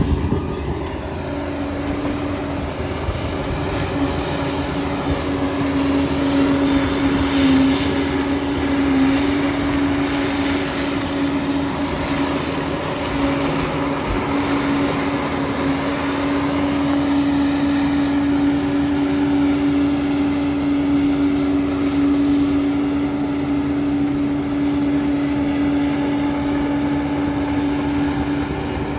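Liebherr 746 crawler dozer's diesel engine running steadily under work, a constant drone with a steady whine held over it.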